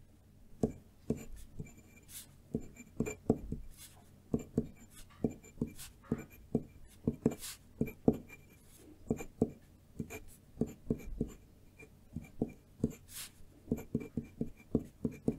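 Kawanishi Glass dip pen's fluted glass nib writing on lined loose-leaf paper: a string of short, separate scratchy strokes and light taps, one to three a second, as characters are written by hand.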